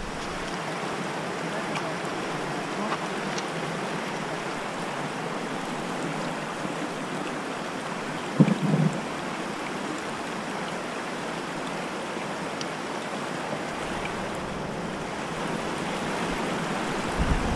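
Steady rushing of river rapids, with a brief thump about eight seconds in.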